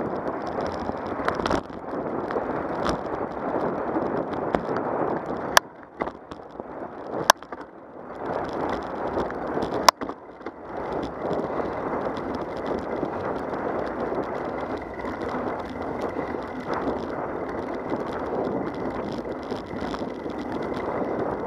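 Steady rushing noise of a bicycle ride on a paved trail: wind on the microphone and tyres rolling on asphalt. It is interrupted by about five sharp clicks in the first half, and there is a quieter stretch in the middle.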